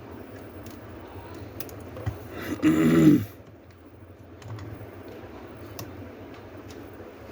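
Light clicks and taps of laptop plastic and small parts being handled during disassembly. About two and a half seconds in there is one louder rasping burst lasting under a second.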